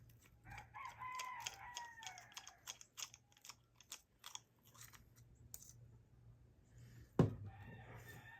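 A rooster crows once, a falling call lasting about a second and a half, then a run of small sharp clicks and ticks from an Abu Garcia Ambassador 5000 baitcasting reel being taken apart by hand, with one louder knock about seven seconds in.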